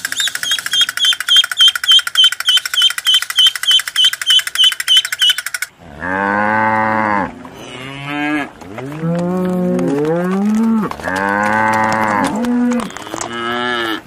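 Ducklings peeping, a short high chirp repeated about three times a second, which stops abruptly a little before halfway. Then cattle moo several times in long, low calls, some of them rising and falling in pitch.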